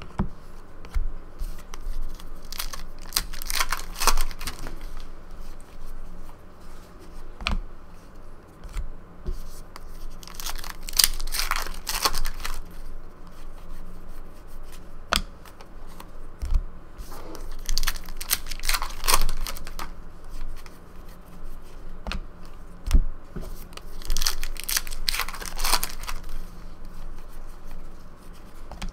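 A stack of Upper Deck Goodwin Champions trading cards being flipped through by hand, the cards sliding and rustling against each other in bursts about every seven seconds, with a few light taps in between.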